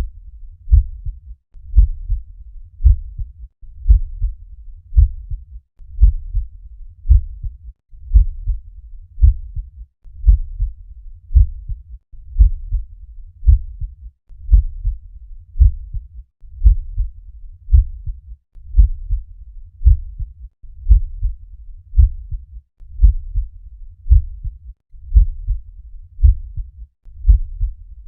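Normal heart sounds heard at the cardiac apex: a regular lub-dub, the first and second heart sounds, repeating about once a second.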